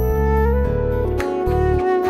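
Background music: a flute-like melody over sustained low bass notes and a light regular beat.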